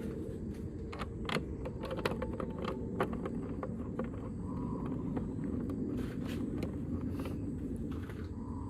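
Small plastic and metal windshield fittings (screws, washers, rubber dampers) being handled and fitted by hand: scattered light clicks and taps, over a steady low rumble.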